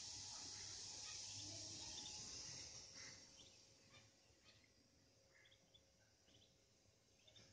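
Quiet yard background: a steady high hiss fades away in the first few seconds, then Muscovy ducklings give faint short peeps about once a second.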